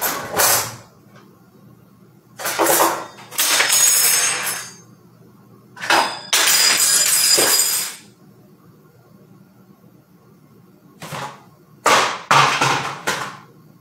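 Kitchen drawer and cabinets clattering and banging in four loud bursts, one of them as a drawer slides open, with quiet room tone between the bursts.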